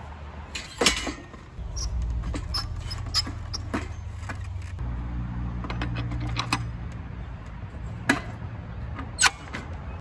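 Scattered metal clanks and clicks from a Makita electric jackhammer and its wheeled cart being handled, over a steady low rumble; the jackhammer is not hammering.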